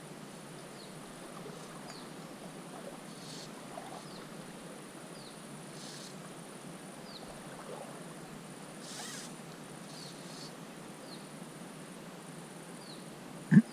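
Quiet riverside ambience: a faint steady high insect buzz, with short high falling chirps every second or two. A brief loud thump comes right at the end.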